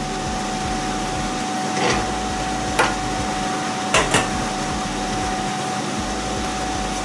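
Steady whirring hum of a fan with a faint constant tone, broken by four light clicks or taps, about two, three and four seconds in, the last two close together.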